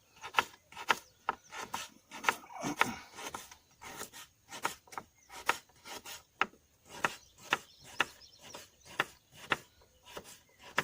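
Knife slicing a carrot on a wooden cutting board: a run of sharp cuts, about two a second, each knocking on the board.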